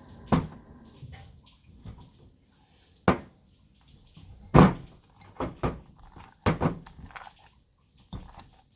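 Slime being mixed in a bowl, with irregular sharp knocks and wet pops, the loudest about halfway through, as more laundry-detergent activator is worked in.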